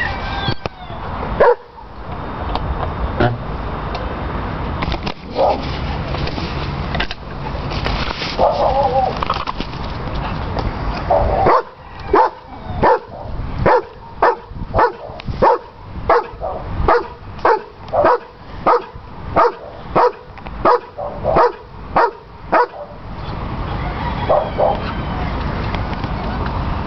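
An animal calling in a regular series of short calls, about two a second, that starts about a third of the way in and runs for some ten seconds before stopping.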